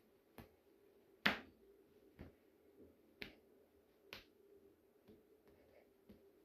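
Computer mouse buttons clicking, sharp single clicks about once a second, the loudest a little over a second in, over a faint steady hum.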